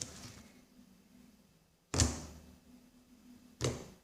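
Two short thumps about a second and a half apart, the first the louder, over a faint steady low hum.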